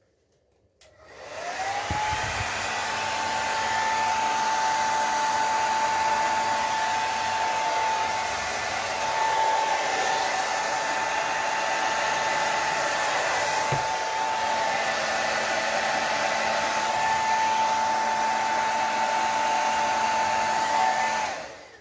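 Handheld hair dryer switched on about a second in, its motor whine rising to a steady pitch over a rush of air, blowing wet poured paint across the top of a box; it is switched off near the end.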